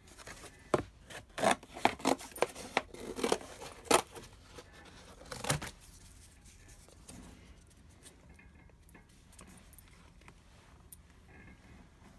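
Cardboard being torn by hand from a printed product box: a run of short ripping and crackling sounds over the first six seconds, then only faint paper rustles.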